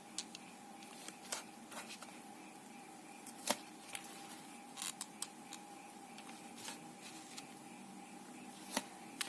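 Faint, scattered light clicks and taps from small craft items being handled while a sew-on rhinestone is set onto lace, over a faint steady hum.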